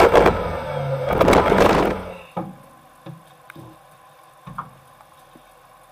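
Off-road 4x4 driving through snow: the engine runs loud under load, with a heavy rushing noise. About two seconds in this cuts off, and what follows is quiet apart from a few short knocks and clicks around a winch cable being handled.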